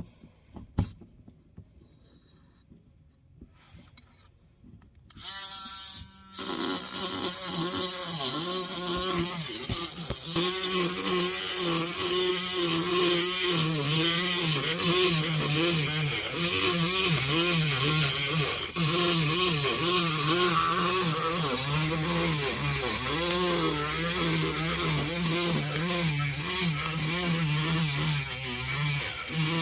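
A few faint clicks, then a power tool starts about five seconds in and runs loudly, its whine wavering up and down in pitch, while a stuck part on the tractor is worked on.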